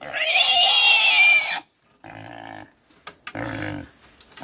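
A pig squeals loudly and shrilly, its pitch wavering, while shut in a wire cage on a scale being weighed. The squeal stops after about a second and a half, and two shorter, quieter low-pitched sounds follow.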